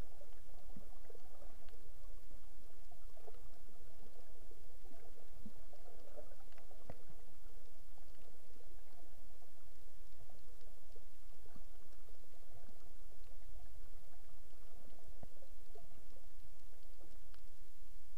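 Underwater ambience picked up through a waterproof camera housing: a steady, muffled low rumble with many small clicks and pops scattered through it.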